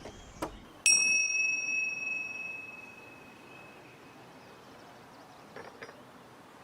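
A single bright, bell-like metallic ding, struck once about a second in and ringing out high and clear as it fades over two to three seconds.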